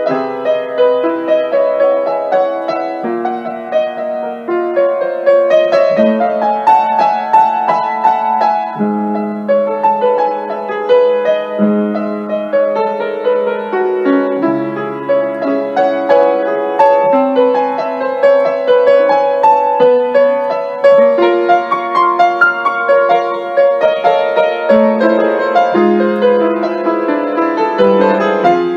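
Upright piano played solo: a continuous improvised piece of flowing notes and chords, mostly in the middle register.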